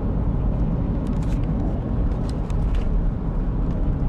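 Steady low rumble of a car driving on the road, heard from inside the cabin: engine and tyre noise, with a few faint light clicks in the first couple of seconds.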